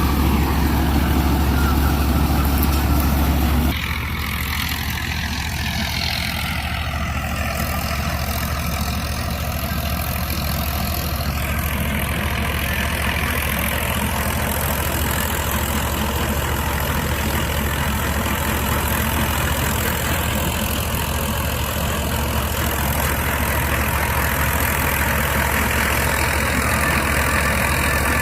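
Swaraj 963 tractor's 65 HP engine driving a tractor-mounted Gill 588 double-rotor combine harvester as it cuts and threshes wheat: a steady mechanical drone. About four seconds in, the drone drops a little in level and a whine slowly falls in pitch.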